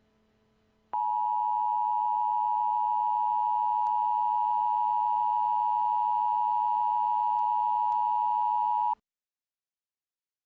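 Emergency Alert System two-tone attention signal (853 Hz and 960 Hz sounded together), a loud steady tone that starts about a second in, holds for about eight seconds and cuts off abruptly. It is the signal that an emergency alert message follows.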